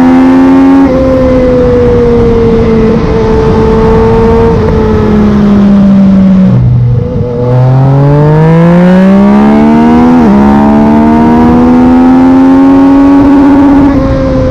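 Yamaha MT-09 inline three-cylinder engine through a Black Widow carbon full exhaust system, heard from the rider's seat. The revs hold fairly level, drop sharply to near idle as the throttle closes about six and a half seconds in, then climb steadily again with a brief quickshifter upshift stutter about ten seconds in, and another step in pitch near the end.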